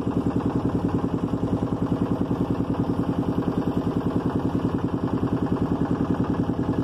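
Motorboat engine running steadily with a fast, even chugging beat.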